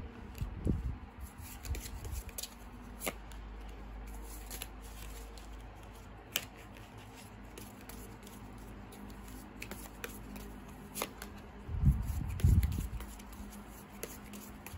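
Tarot cards being handled, with the deck riffled and cards drawn and laid face up on a cloth, giving scattered light card snaps and slides. A couple of dull knocks about twelve seconds in are the loudest sounds.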